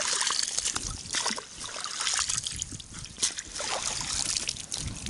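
Water splashing and trickling as a mesh fishing keepnet is lifted out of shallow river water, with many small splashes and drips as it drains.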